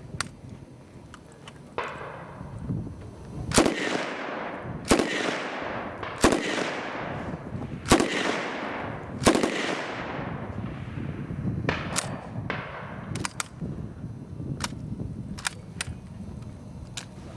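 Military rifle fired in single shots: about five sharp reports roughly a second and a half apart, each ringing away across the open range. Fainter, thinner cracks follow near the end.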